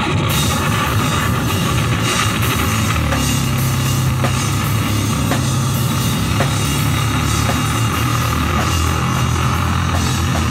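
Live rock band playing loud: a drum kit with cymbals crashing in just after the start, over sustained low notes from an amplified guitar.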